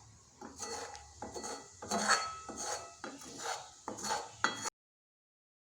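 A spoon stirring and scraping around a pan of boiling coconut milk, about ten short strokes at two to three a second, some with a light ringing clink; it cuts off suddenly near the end.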